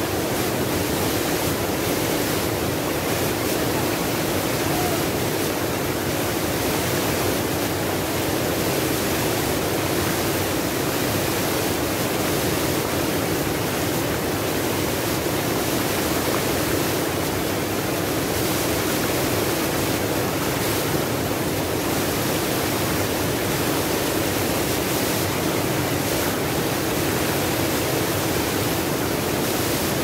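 Small waterfall pouring over boulders into a rock pool close by: a steady, even rush of falling water.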